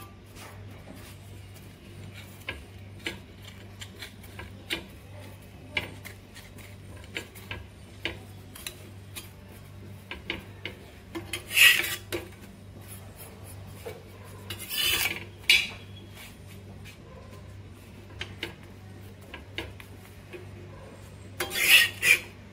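Metal spatula scraping and tapping on a flat griddle (tawa) while buttered pav buns are turned and pressed to toast, with louder scrapes a little before halfway, around two-thirds of the way, and near the end.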